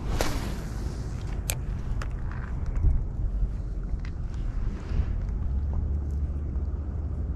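Wind buffeting the microphone: a steady low rumble, with a short rustling swish right at the start and a few small clicks.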